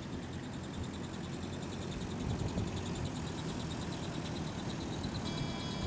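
A minivan driving past on a wet road, its engine and tyre noise growing louder about two seconds in.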